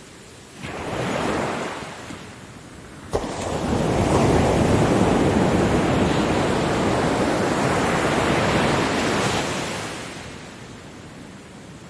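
Ocean waves breaking: a small wave about half a second in, then a larger one crashing suddenly about three seconds in and washing loudly for several seconds before fading away.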